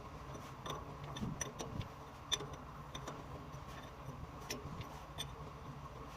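Faint, irregular small clicks and light taps over a steady low hum.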